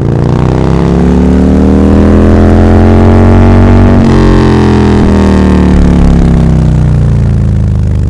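Bajaj Pulsar N160's single-cylinder engine running at road speed, heard from the rider's seat, its pitch rising gently for about three seconds, then a short break about four seconds in, after which the pitch falls away.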